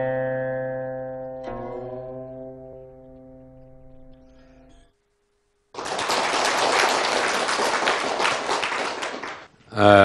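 Plucked-string music: a chord rings out, a second one is struck about a second and a half in, and both slowly die away over the first five seconds. After a short silence, an audience applauds for about three and a half seconds.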